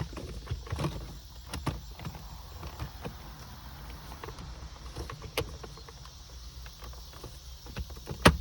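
Plastic shift console trim of a Lexus IS250 being worked down into place: scattered light clicks and knocks over a low steady hum, with a sharp snap near the end as the trim clips in.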